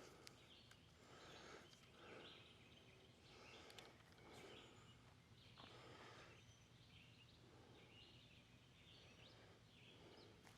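Near silence: faint outdoor ambience with soft rustling about once a second and a few faint bird chirps.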